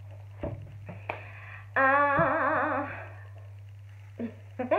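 A woman's voice sings one brief wavering note, about a second long, as the next book is brought out. Before it come a few soft knocks of the book being handled, over a steady low hum.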